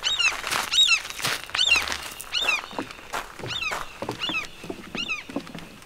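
A bird calling over and over, about eight short high-pitched calls, each falling in pitch, evenly spaced under a second apart.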